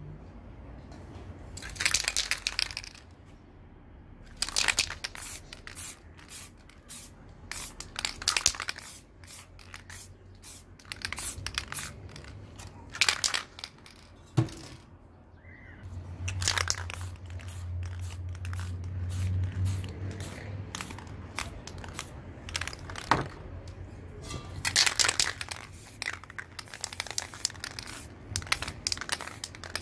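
Aerosol spray paint can hissing in repeated short bursts, each about a second long, with brief pauses between them.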